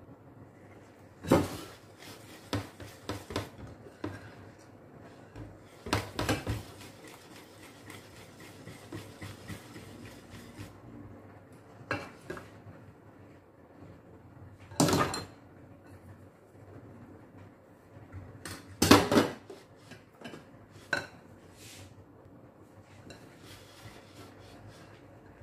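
A wire whisk clinking and scraping against a glass mixing bowl while cake batter is stirred, with a few sharp, louder clinks of metal on glass spaced several seconds apart.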